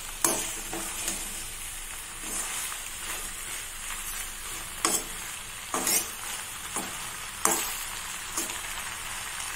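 Macaroni in masala gravy sizzling in a metal kadai while a perforated metal spoon stirs it, with a steady hiss and the spoon scraping and knocking against the pan several times.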